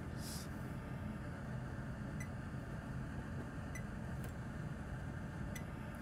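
Steady low hum of workbench equipment, with a few faint short ticks.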